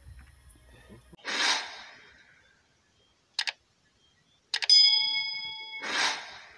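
Added sound effects: a whoosh, a quick double click, then clicks and a bright bell ding that rings for about a second, followed by another whoosh.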